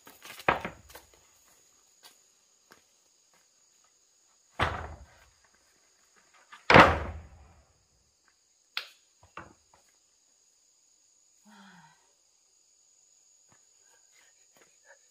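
A handful of heavy, separate thuds spread over several seconds, the loudest about seven seconds in and a sharper knock about two seconds after it, over a faint steady high-pitched whine.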